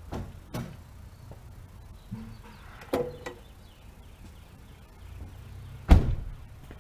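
A few clicks and knocks around a car, then a heavy door thump about six seconds in.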